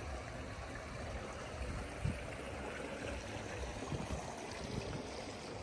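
Steady hubbub of a crowd, an even rushing background noise with a few low thuds.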